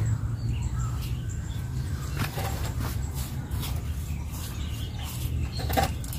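Outdoor ambience: faint bird calls over a low steady rumble, with a few soft clicks and taps, the clearest near the end.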